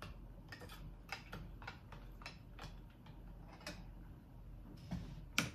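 Light kitchen handling at a counter: a run of irregular small clicks and taps, with one sharper knock near the end.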